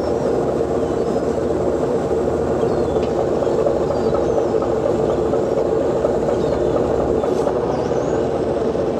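Steady mechanical drone of a purse seiner's engines and deck machinery running while the crane hauls the net aboard, with a few faint, short high bird cries over it.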